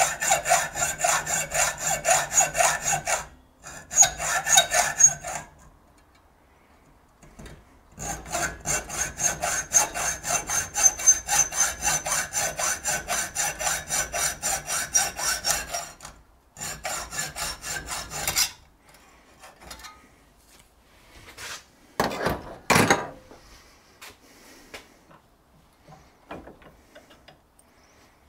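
Hand hacksaw cutting through a metal workpiece held in a bench vise: quick, even rasping strokes in several runs with short pauses, stopping about 18 seconds in. Then a couple of louder scrapes and a few light knocks.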